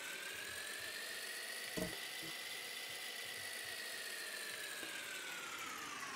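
Whirring electronic sound effect: a steady hiss with one tone that slowly rises in pitch and then sinks again, with a short click a little under two seconds in.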